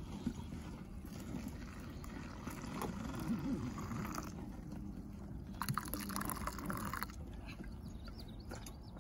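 Hot water poured from a camp-stove pot into steel canteen cups of cocoa powder, splashing as each cup fills, in separate pours from cup to cup.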